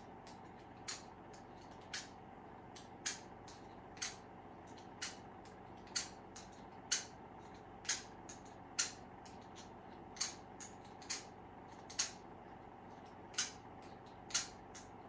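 Hand file drawn across the steel blade of bypass pruners to sharpen the cutting edge: short rasping strokes at about one a second, with lighter ticks between them.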